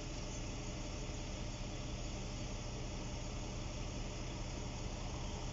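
An engine running steadily with a low hum under a constant hiss.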